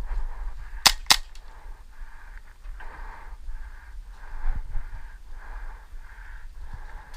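Airsoft gun firing two quick shots about a second in, followed by steady, rhythmic breathing.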